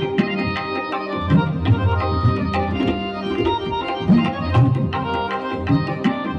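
Tabla played in a fast, continuous rhythm: sharp ringing strokes on the small drum mixed with deep bass strokes that bend in pitch. Under it run steady, held organ-like notes as a melodic accompaniment.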